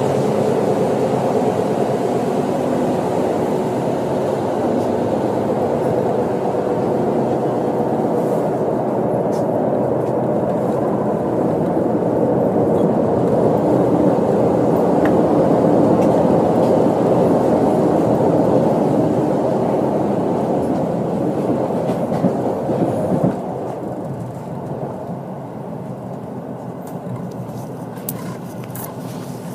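Train running at speed, heard from inside the carriage: a steady running noise of wheels on rails that drops clearly in level about 23 seconds in.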